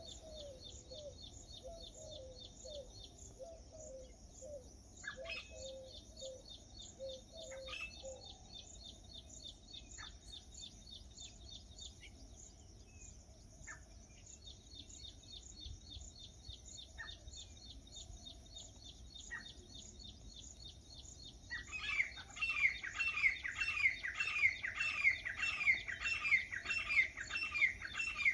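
Birds calling over a fast, steady high chirring, with quick low chirps during the first third. About three quarters of the way in, a loud call starts repeating, each note falling in pitch, about three a second.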